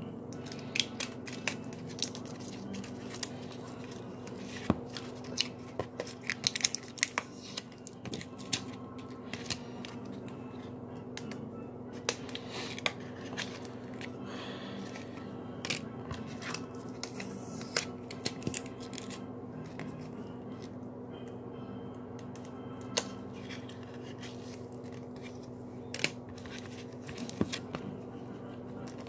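Baseball cards being slid out of clear plastic sleeves and handled: scattered sharp clicks and rustles of plastic and card stock, some in quick clusters, over a steady low hum.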